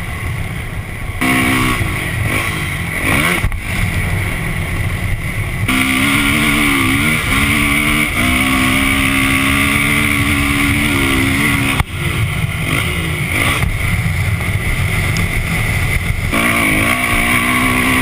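Dirt bike engine running under throttle, its note rising and dipping as the bike rides up a sand dune. Heavy wind rumble on the bike-mounted camera's microphone. The engine note breaks off briefly about twelve seconds in, then picks up again near the end.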